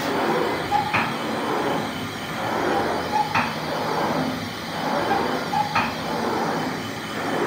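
Round (cylindrical) screen printing machine running its print cycle: the carriage slides along its rail with a steady sliding rush, and a sharp clack comes three times, about every two and a half seconds, at each stroke.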